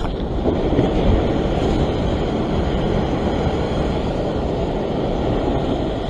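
Ocean swell breaking and washing over a rock ledge, with wind buffeting the microphone, a steady rush of noise heaviest in the low end.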